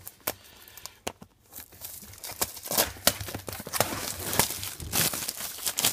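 Plastic shrink wrap being picked at, torn and peeled off a cardboard trading-card box, crinkling in irregular crackles that grow denser and louder in the second half.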